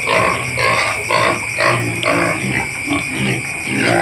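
Young pigs grunting repeatedly, a short grunt about every half second.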